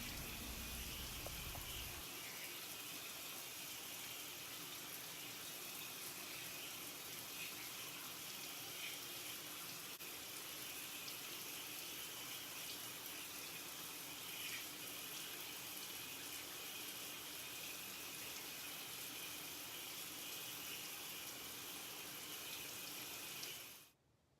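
Water running steadily from a tap, then shut off suddenly near the end.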